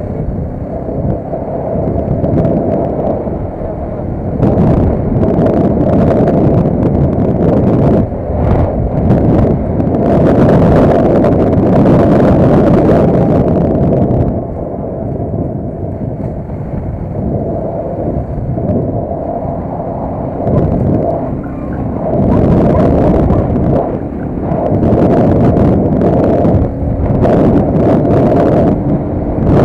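Motor vehicle being ridden: its engine runs under way with heavy wind buffeting on the mounted camera's microphone, rising and falling in surges.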